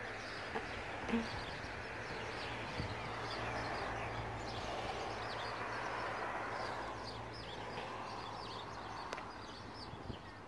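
Small birds chirping repeatedly over a steady outdoor rush of background noise that swells in the middle and eases off near the end.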